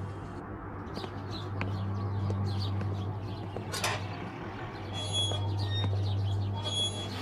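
Birds chirping over a steady low hum, with a short rattle of a metal gate's latch about four seconds in.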